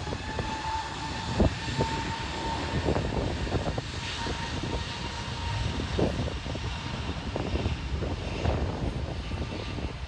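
Jet airliner engines running at low thrust, an Airbus A330-900neo's Rolls-Royce Trent 7000s, a steady rumble with a thin whine that fades about halfway through. Wind buffets the microphone.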